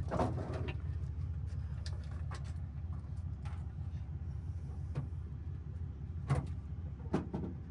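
Pickup truck engine idling with a steady low hum, with a few scattered metallic clinks and rattles as heavy chains are unhooked from the fifth-wheel hitch; the sharpest clink comes a little after six seconds in.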